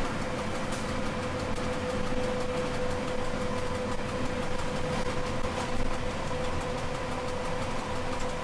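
Electric train running along the track, heard from inside the train: a steady rumble of the wheels with a constant whine held at one pitch.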